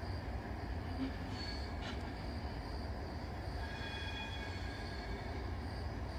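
Regional passenger train rolling slowly over curved points with a steady low rumble, its wheels squealing thinly on the curves, most clearly from about three and a half to five seconds in.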